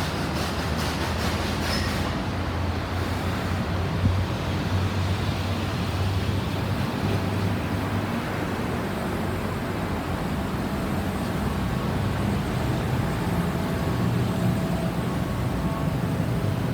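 Steady road-traffic noise: a low rumble of vehicle engines and tyres in slow-moving traffic.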